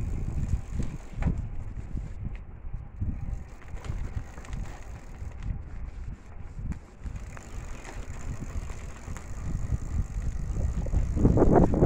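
Wind buffeting the microphone with a low, uneven rumble while moving along an outdoor trail, growing louder near the end.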